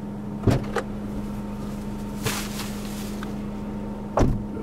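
Car engine idling with a steady low hum, heard from inside the cabin, with a few sharp knocks of doors being worked: two quick ones about half a second in and a louder one near the end.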